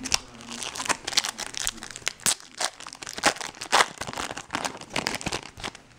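Foil wrapper of a baseball trading-card pack being torn open and crinkled by hand: a run of irregular, crackly rustling.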